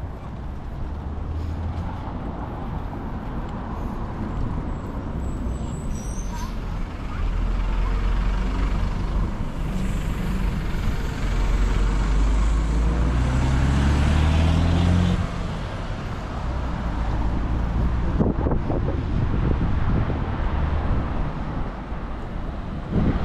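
Road traffic going by. About halfway through, a vehicle's engine grows louder and rises in pitch for a few seconds, then drops off suddenly.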